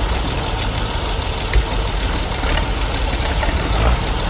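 Dutra tractor's diesel engine running steadily with a deep low rumble, and a single short knock about one and a half seconds in.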